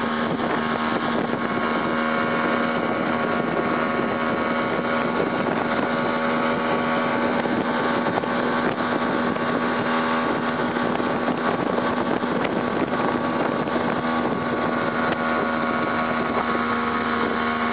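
Boat's outboard motor running at a steady speed under way, a constant drone with the rush of water and wind over it.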